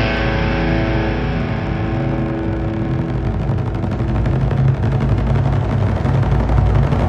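Rock music on electric guitar: a chord held and fading out over a steady low bass line.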